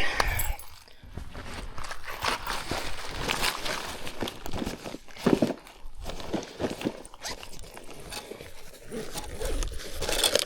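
Irregular crunching footsteps and knocks, with rustling and scraping in between, some steps sharper and louder than others.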